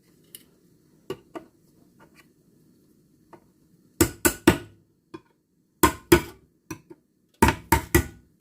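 A spoon knocking sharply against a bowl in quick clusters of two or three knocks, starting about four seconds in, with a few lighter clicks before them.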